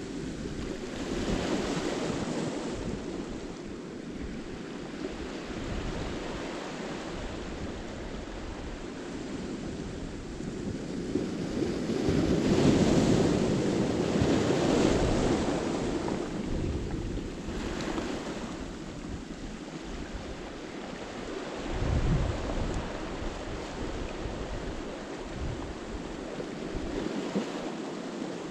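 Sea surf breaking and washing over a boulder beach, swelling and easing. The biggest wave breaks about halfway through, a smaller one later, with wind buffeting the microphone.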